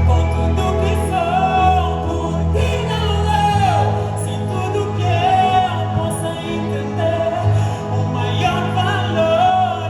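Gospel worship music: singing voices carrying a melody over a band with sustained bass notes, the bass moving to a new note about three and a half seconds in.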